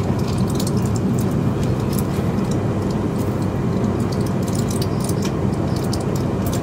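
Steady rumble of a Class 350 Desiro electric multiple unit running at speed, heard inside the carriage, with scattered light clicks and rattles over it.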